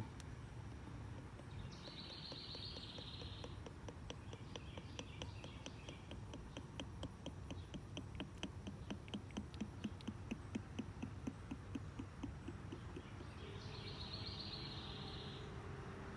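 5W-30 motor oil glugging as it is poured from a jug into the engine's oil filler, a regular gurgle of about three glugs a second that grows stronger toward the middle and fades out. Two short high hisses come near the start and near the end.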